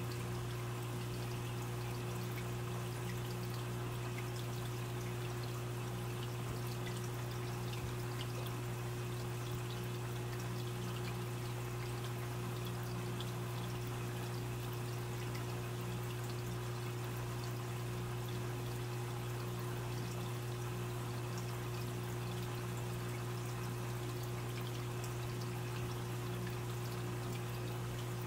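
Aquarium filter running: a steady trickle of water with an even low hum from the pump motor underneath.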